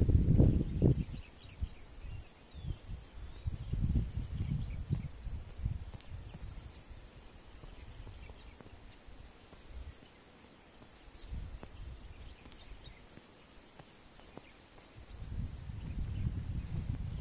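A steady, high-pitched chorus of insects chirring, with wind buffeting the microphone at the start, again a few seconds in, and near the end.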